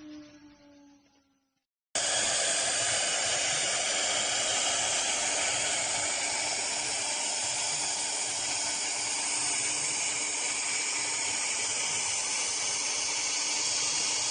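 A CNC router spindle's whine falls in pitch and fades out. About two seconds in, it gives way abruptly to a spindle running steadily: a loud, even hiss with a faint constant hum underneath.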